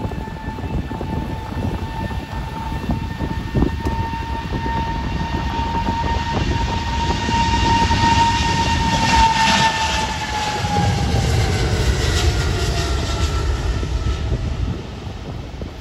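Airliner's jet engines at takeoff power: a steady whine over a deep rumble that grows louder toward the middle, then drops in pitch about ten seconds in as the aircraft passes overhead. Wind buffets the microphone throughout.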